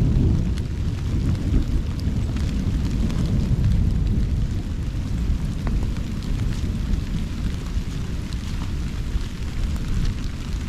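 Wind buffeting the microphone in a heavy, uneven low rumble over a steady hiss of heavy rain, with scattered raindrops ticking on the camera.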